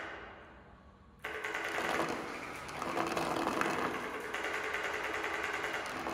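Abaca-paper membranes on steel stands rattling with a fast, even buzz as the installation's sine-tone sound score shakes them, over steady tones. The buzz fades at the start, then cuts back in abruptly about a second in and runs on.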